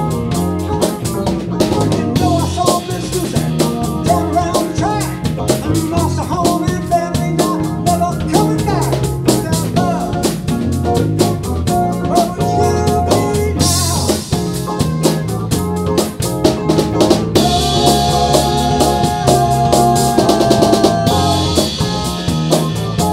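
Live rock band playing an instrumental stretch on electric bass, electric guitar and drum kit, over a steady drum beat with snare backbeat. Brighter cymbal washes join about 14 seconds in and again from about 17 seconds.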